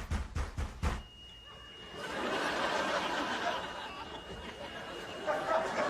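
A fast run of thuds, about five a second, that stops about a second in; then, from about two seconds in, sitcom studio audience laughter.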